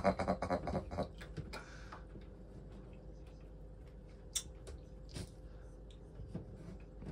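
Scattered small clicks and light knocks from a cutting board and bowl being handled at a kitchen sink, with a sharper click about four seconds in and another about five seconds in, over a faint steady hum.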